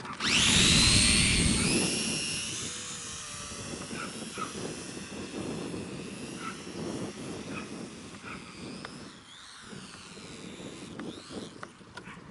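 Electric motor and propeller of a Sport Cub foam RC plane, spun up to a high whine as the plane is thrown from the hand, then fading and wavering in pitch as it flies away. Gusty wind rumbles on the microphone.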